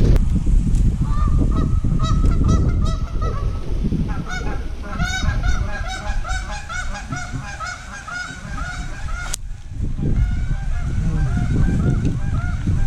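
A flock of geese honking, many calls repeating and overlapping, building up from about a second in, over a steady low rumble. A single sharp click comes about two thirds of the way through.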